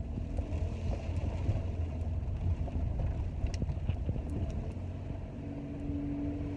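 Road noise heard from inside a moving taxi's cabin: a steady low rumble of the car driving. A steady hum joins about five seconds in.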